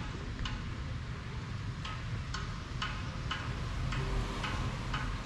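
Footsteps on paving stones, a short sharp click about twice a second at an even walking pace, over a low steady rumble.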